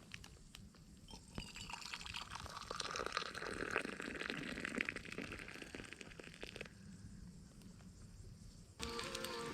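Water pouring, splashing and trickling for about five seconds, with scattered clicks; background music starts near the end.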